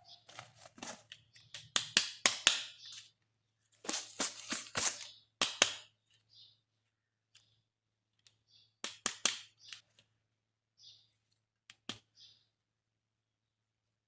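Toy and packaging being handled during an unboxing: sharp plastic clicks mixed with crinkly rustling, in several short bursts with pauses between and a single click near the end.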